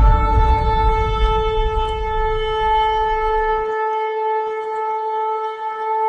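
A shofar sounded in one long, steady blast, with a low rumble underneath that stops about halfway through.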